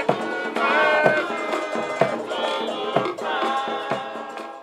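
Music with a wavering melody over regular percussion hits, fading down near the end.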